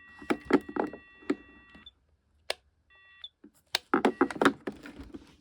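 Solitaire 1000B payphone giving an electronic beep, held for about two seconds, then a second short beep about three seconds in, among sharp clicks and knocks of the phone being handled.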